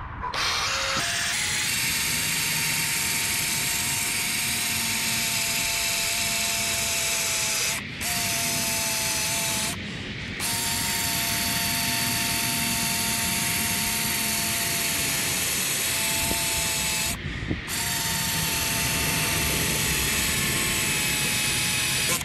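Power drill spinning an 800-grit sanding disc against a plastic headlight lens: a steady motor whine over a sanding hiss. The drill stops briefly three times, near the middle and about three quarters of the way through.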